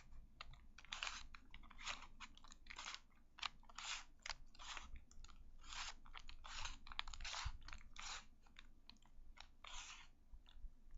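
Rubik's Cube being twisted by hand: its plastic layers click and scrape in quick, irregular turns, several a second.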